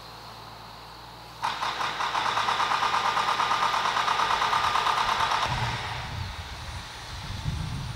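A small engine running with a fast, even pulse. It starts abruptly about a second and a half in and cuts off a little after five seconds, leaving a quieter, low, uneven noise.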